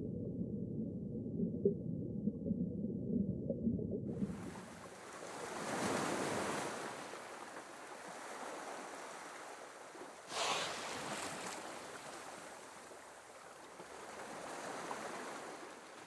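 Muffled underwater ambience with only low sound at first. About four seconds in it switches to the open sea surface: waves washing and lapping in slow swells, with a sharper splash about ten seconds in.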